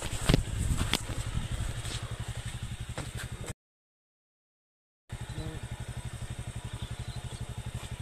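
Motorcycle engine running with a steady, rapid low pulse, with a couple of sharp knocks in the first second. About halfway through, the sound drops out to dead silence for a second and a half, then the same engine pulse comes back.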